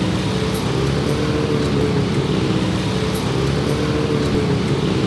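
A motor vehicle engine running steadily at idle, a low drone that wavers slightly in pitch, over street traffic noise.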